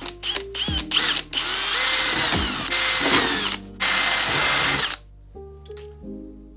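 Electric drill run in short trigger pulses, then three longer runs, its motor whine rising as it spins up and dropping as it slows, stopping about five seconds in.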